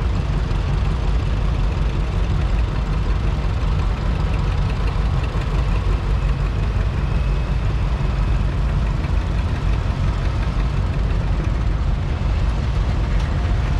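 Vintage farm tractor engines running as a line of old tractors drives slowly past, a steady low rumble without a break.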